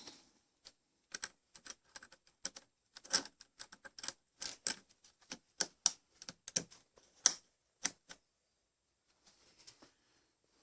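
Irregular light metallic clicks and clinks as a saw chain and the parts of a bench-mounted chainsaw chain sharpener are handled and adjusted, stopping about eight seconds in.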